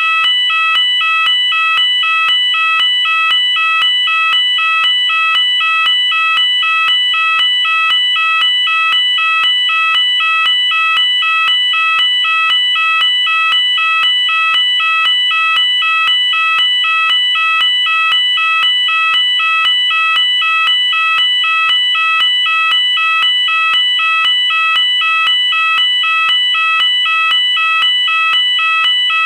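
UK electronic fire alarm sounder going off continuously and loudly, its piercing tones alternating in a steady, evenly repeating pattern that pulses about once a second.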